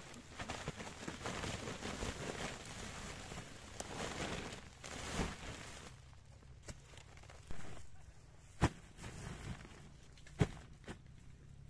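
Husked corn cobs tumbling from a woven bamboo basket into a woven plastic sack, a dense rustle and clatter for about six seconds. Then the sack is handled, with a thud and two sharp knocks.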